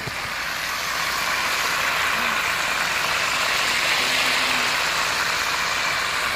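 Hot oil sizzling steadily around whole fish deep-frying in a pan, swelling louder over the first few seconds.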